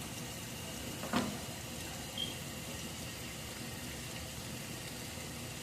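Steady background hiss with a single light knock about a second in.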